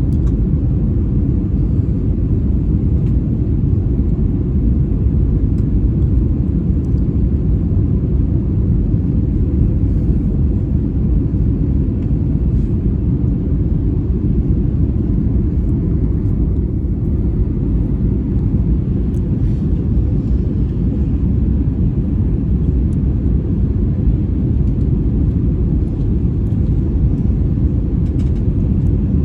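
Airbus A321-200 cabin noise heard from an economy window seat: a loud, steady low rumble of the jet engines and airflow, with a faint steady hum.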